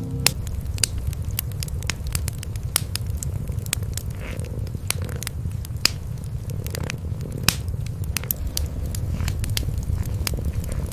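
Wood fire crackling, with sharp pops at irregular intervals, over a steady low rumble of cats purring.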